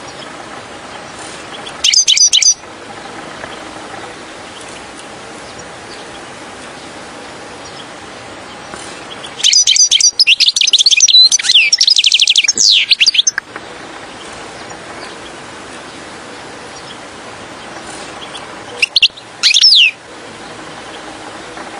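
European goldfinch singing in three bouts of rapid, tinkling twitters: a short phrase about two seconds in, a long run of about four seconds in the middle, and a brief phrase near the end, over a steady background hiss.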